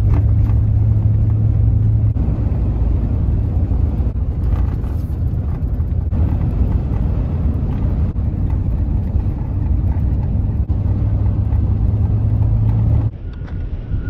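A car driving on a gravel road, heard from inside: a steady, loud low rumble of engine and tyres that cuts off sharply about a second before the end.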